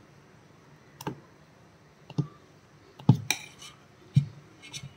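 A metal ladle knocking against a stainless steel bowl while stirring thick batter: about five sharp clicks, roughly one a second, each with a soft low thud.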